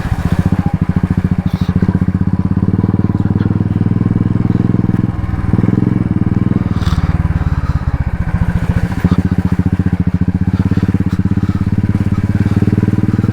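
Royal Enfield Classic 350's single-cylinder engine, fitted with a loud aftermarket exhaust, thumping steadily at low speed while the bike rides off-road through mud. The throttle eases off briefly about five seconds in.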